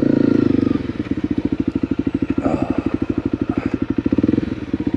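Honda CRF250L's single-cylinder four-stroke engine pulling steadily under load on the climb, then dropping about a second in to a slow, even idle of separate firing pulses, roughly ten a second. Now and then a light clatter can be heard.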